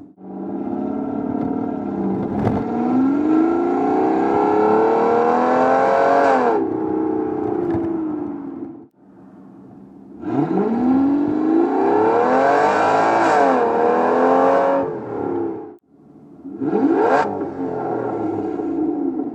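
Aston Martin DB9's 6-litre V12 with a modified exhaust, heard in three separate runs. Two accelerations rise steadily in pitch; the second drops briefly at a gear change and climbs again. Near the end comes a quick sharp free rev that falls straight back.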